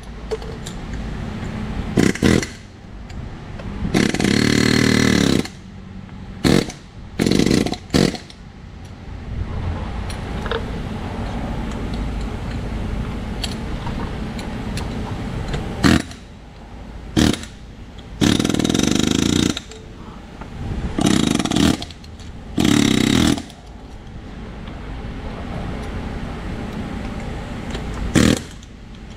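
Snap-on PH3050B pneumatic air hammer firing in short, loud bursts, about ten of them, the longest over a second, its bit hammering against an old rusty steel control arm.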